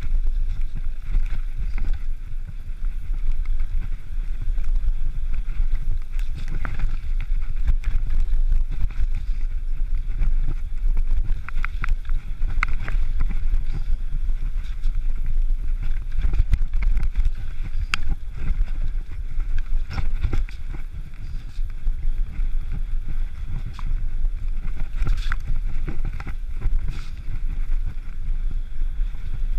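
Mountain bike descending a rough, stony track: wind rumbling steadily on the rider-mounted camera's microphone, with frequent rattles and knocks as the bike runs over stones.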